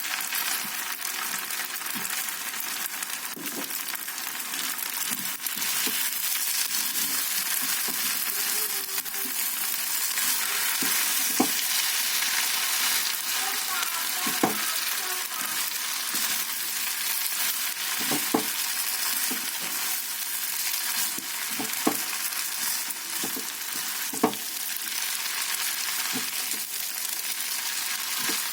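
A stir-fry for kwetiau goreng sizzling steadily in a hot pan while it is stirred. A few sharp knocks of the spatula against the pan come now and then in the second half.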